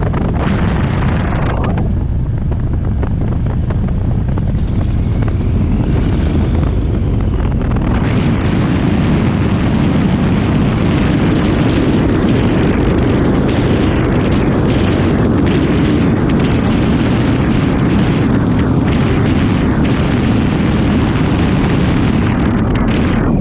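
Light airplane in flight: a loud, steady rumble of engine and rushing air, which grows fuller about eight seconds in.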